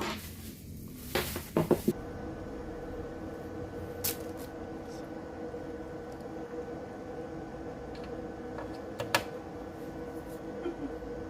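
Handling noise from a Kevler PM-830 dynamic microphone: a few sharp clicks and knocks in the first two seconds. About two seconds in, a steady electrical hum with several held tones sets in, with light taps now and then.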